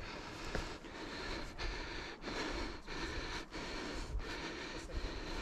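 Hiker's heavy huffing and puffing through a face mask while climbing steep stairs, in a quick, even rhythm of breaths.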